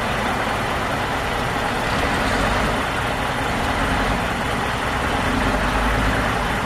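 Double-decker bus's diesel engine running steadily as the bus pulls away.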